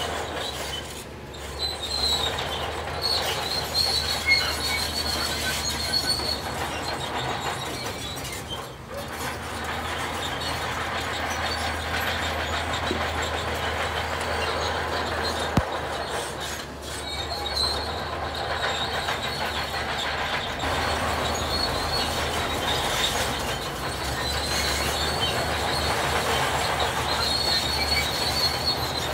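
Heavy earthmoving machinery working: a diesel engine running steadily under a wash of metal-on-metal clanking, with a high squeal that comes and goes.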